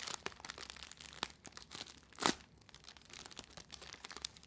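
Gift wrapping crinkling and crackling as it is handled and opened, with one louder sharp crackle about two seconds in.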